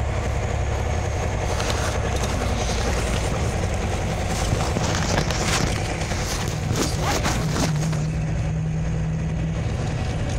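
Scania OmniLink CL94UB city bus heard from inside the passenger cabin while driving: steady engine drone with tyre noise on the wet road. A few short rattles come a little past the middle, and a steady low hum sets in near the end.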